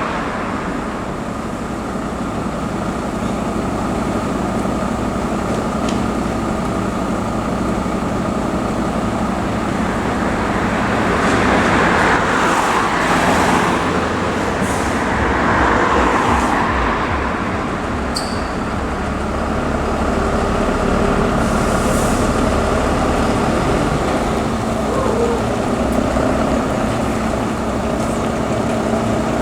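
Road vehicles' engines running steadily, with two swells of passing vehicle noise about twelve and sixteen seconds in.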